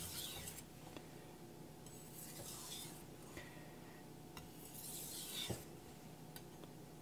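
Carbon steel kiritsuke bunka blade scraping across a wet Naniwa Aotoshi water stone in slurry, about three soft strokes a couple of seconds apart. These are light-pressure alternating strokes, the final burr-reducing stage of sharpening.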